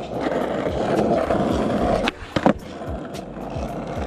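Skateboard wheels rolling over rough asphalt. About two seconds in come two sharp clacks half a second apart, with the rolling noise dropping out between them, like an ollie's tail pop and landing. The rolling then goes on.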